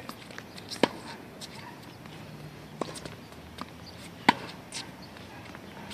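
Tennis ball struck by rackets during a rally on a wet hard court: two loud hits about three and a half seconds apart, with fainter knocks between them from the ball bouncing.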